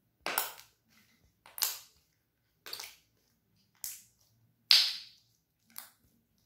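Slime bubble pops: air pockets squeezed out of a ball of slime between the hands, six sharp pops about a second apart, the fifth the loudest.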